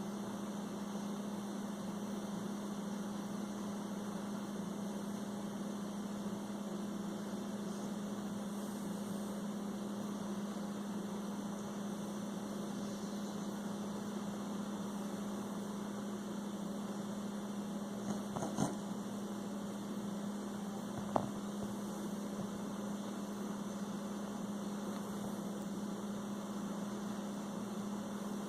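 A steady low hum with no rise and fall, broken by two brief clicks about two-thirds of the way through.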